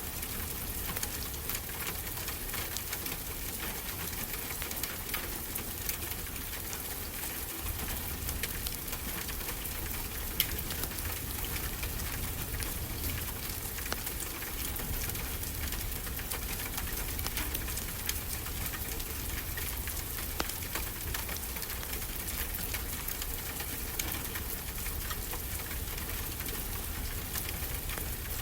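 Wood fire crackling with frequent small pops, one sharper pop about ten seconds in, over a steady rushing of ocean surf.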